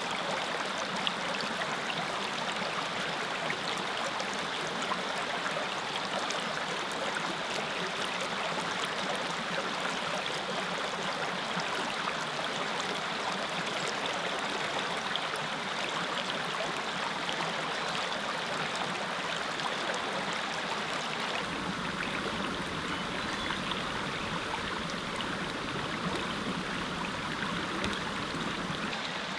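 Small mountain creek flowing steadily, an even rushing of water. About 21 seconds in the sound changes and deepens, with a low rumble added underneath.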